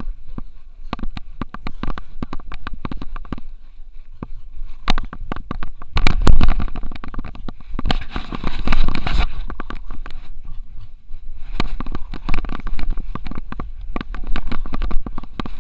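Xiaomi Yi action camera strapped to a running French Bulldog's harness, jostled with each stride: a rapid, irregular stream of knocks and rattles over a low rumble. It gets louder and noisier about six and again about eight seconds in.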